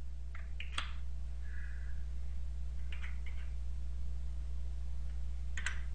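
Steady low electrical hum with a few faint clicks: a cluster about half a second in, more around three seconds in, and a pair just before the end.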